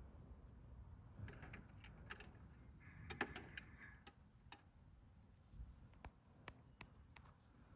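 Faint, scattered clicks and taps with a short scraping rustle about three seconds in, from small plastic parts of a toy washing machine being handled as it is taken apart.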